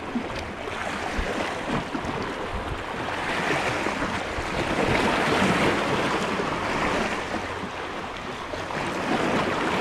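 Sea water washing at the shore, with wind on the microphone: a steady rush that swells about halfway through.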